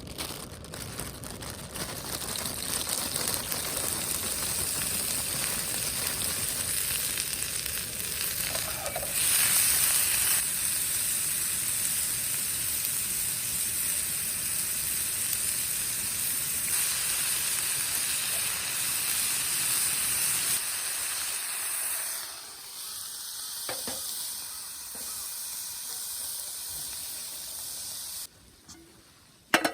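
Food sizzling and frying in a hot pan, a dense, steady sizzle that swells for a moment about nine seconds in, thins out later and cuts off abruptly near the end.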